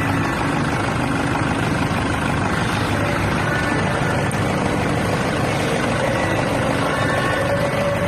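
Toyota Innova engine idling steadily, with the air-conditioning compressor's magnetic clutch not engaging because its supply line is getting no power.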